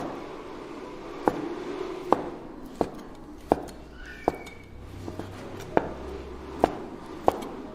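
Kitchen knife chopping on a cutting board in steady, unhurried strokes, a little more than one a second.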